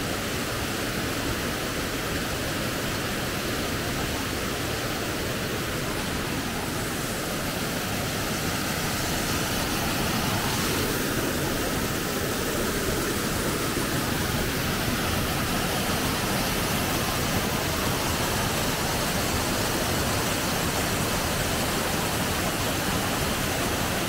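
Waterfall cascading over granite boulders: a steady, even rushing of falling water that grows slightly louder about halfway through.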